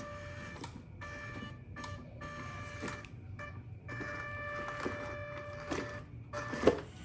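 Electric motor of a scale RC crawler truck whining as it is throttled on and off in short spurts, with knocks of the truck's tyres and chassis against the obstacles and one louder knock near the end.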